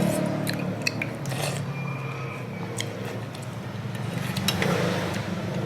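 Eating sounds from a bowl of noodle soup: scattered light clicks and clinks of utensils against the bowl, over a steady low hum.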